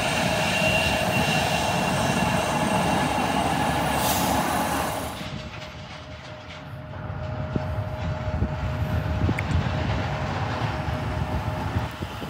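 Jet aircraft engines: a steady roar with a whine on top, the higher part falling away about five seconds in and leaving a lower rumble.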